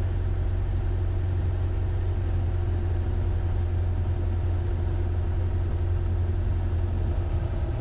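Zenith CH 650 light sport aircraft's piston engine running at low taxi power, a steady low drone.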